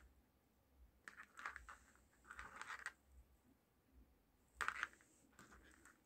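Faint handling noise from speaker wire and a small plastic speaker-wire-to-RCA adapter box: several short bursts of rustling and light clicking, the loudest a little before the end.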